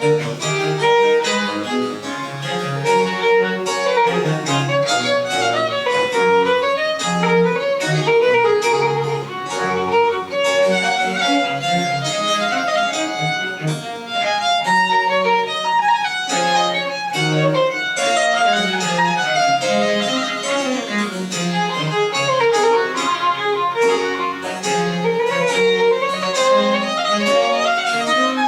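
French Baroque chamber music played live: a violin carries busy running melodic lines over a moving bass line, playing on without a pause.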